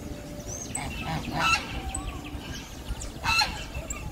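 Domestic goose honking twice, about two seconds apart.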